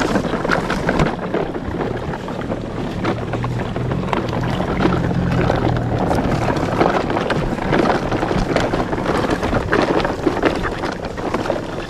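Large plastic toy dump truck, loaded with smaller plastic toys, towed on a string through shallow water over a plastic-sheet track: its wheels rolling and sloshing, with many small clicks and knocks from the load.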